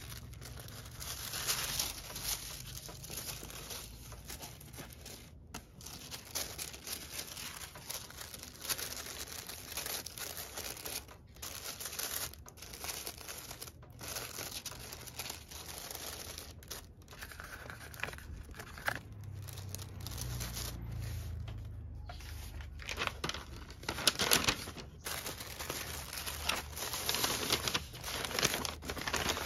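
Tissue paper and kraft paper rustling and crinkling by hand as a folded garment is wrapped and fitted into a paper envelope, with sharper crackles near the end.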